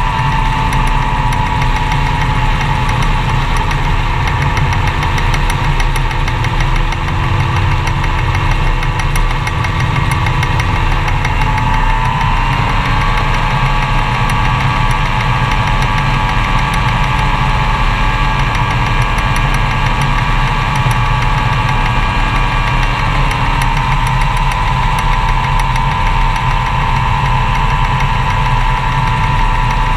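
Gyroplane engine and propeller running steadily. The pitch steps up slightly about twelve seconds in and settles back down about ten seconds later.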